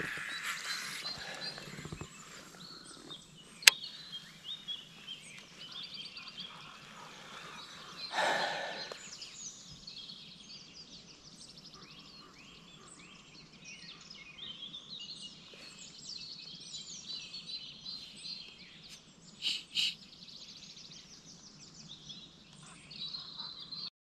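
Birds singing in the background, many short chirps and whistles, with a sharp click about four seconds in and a brief louder noise around eight seconds.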